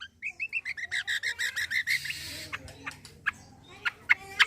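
Kecial kombo (cucak kombo) songbird singing: a fast run of about a dozen chirps in under two seconds, then scattered sharp single notes.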